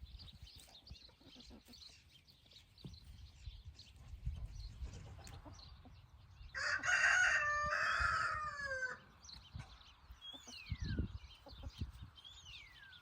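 A rooster crowing once, a single call of about two and a half seconds in the middle that drops in pitch at the end. Near the end come two faint falling bird whistles.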